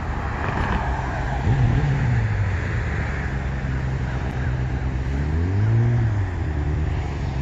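Cars and pickup trucks driving across a railroad grade crossing, their engines pulling away over a steady road rumble; one engine note rises about a second and a half in, and another swells and fades around six seconds in.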